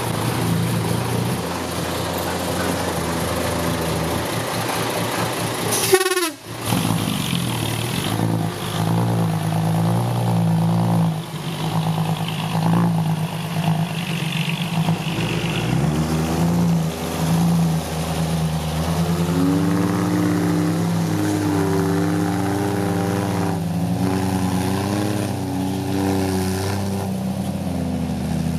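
Six-wheel dump truck's diesel engine running, its pitch stepping up and down in the second half. A short sharp sound with a falling pitch breaks in about six seconds in.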